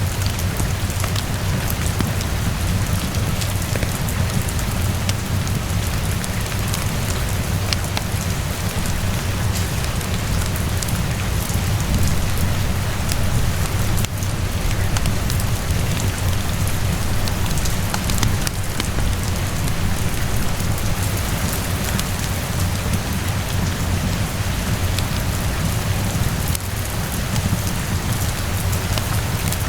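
Steady rain falling, with a deep, even low rumble underneath and scattered sharp crackles from a wood fire mixed in.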